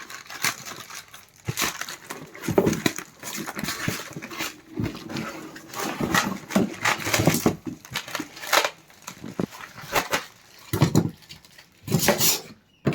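Ceiling fan packaging and parts being handled: irregular rustling, scraping and light knocks, with a few sharp clatters near the end.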